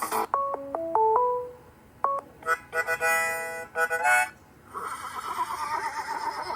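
Huawei Ascend Mate 2 smartphone playing its ringtones one after another, each cut short. First comes a quick stepping melody of clean beeps, then a buzzy chord-like tone, then a warbling trill near the end.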